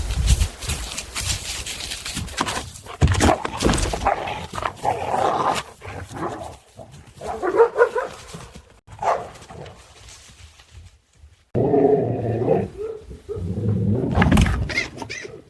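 A dog vocalizing in several separate calls with pauses between them, and a few sharp knocks near the start.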